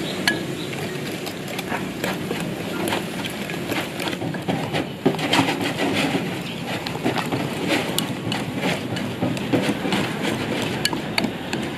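Wire balloon whisk beating a thick flour-and-egg cake batter in a ceramic bowl: the metal tines click and scrape against the bowl many times in an irregular, rapid rhythm.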